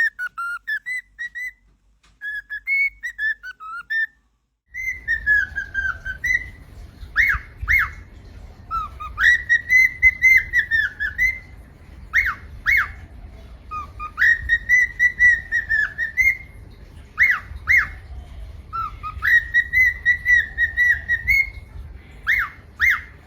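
Cockatiel whistling a tune: long held notes broken by short, quick up-and-down notes, phrase after phrase. A low steady background hum comes in about five seconds in.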